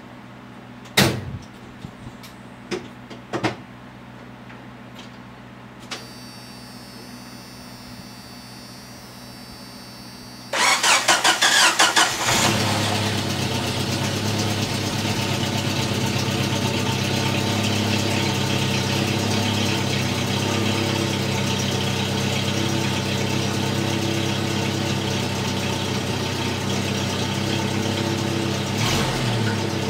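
A few sharp clicks, then a Jeep engine cranking rapidly for about a second and a half before catching and settling into a steady idle. It starts after sitting unused for weeks on a battery the owner suspects is weak.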